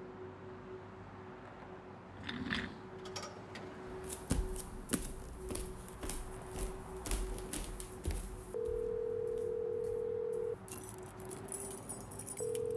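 Scattered footsteps and small knocks as a person gets up from a desk chair and walks off, then a telephone ringback tone: a steady beep of about two seconds, a short pause, and the beep again near the end.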